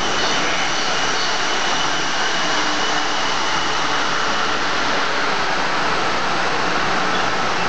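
Class 158 diesel multiple unit's underfloor diesel engines running as the train moves slowly along the platform: a steady rushing drone.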